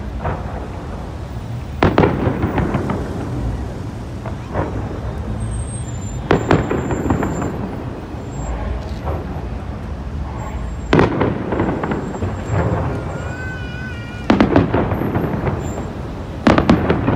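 Aerial fireworks shells bursting overhead: about five deep booms a few seconds apart, each trailing off in a rolling rumble, over a steady low background rumble.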